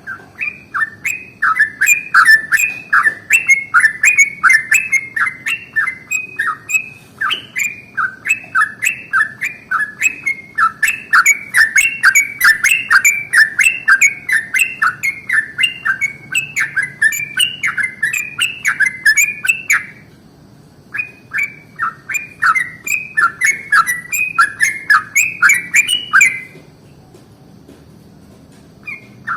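Yellow-vented bulbul (trucukan) singing a long, fast run of bubbly chirps, about three notes a second, with a short break about twenty seconds in and a stop a few seconds before the end, then starting up again.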